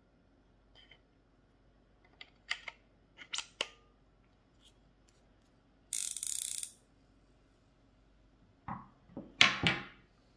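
Handling of a fly reel on its rod: scattered light clicks, then a short rasping burst under a second long, about six seconds in, as the spool is turned. Near the end come several sharp knocks, the loudest part, as the rod and reel are set down on the wooden table.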